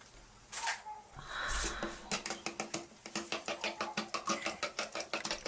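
Eggs being beaten in a bowl: a few knocks at first, then about two seconds in a fast, regular clicking of the utensil against the bowl, about five strokes a second.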